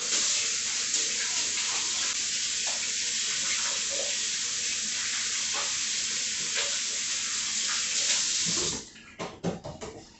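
Kitchen faucet running into the sink while hands are rinsed under it. The water shuts off about nine seconds in, followed by a few short clicks and knocks.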